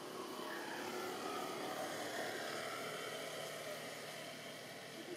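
Steady engine hum of a motor vehicle over a background hiss, swelling slightly in the middle and easing off.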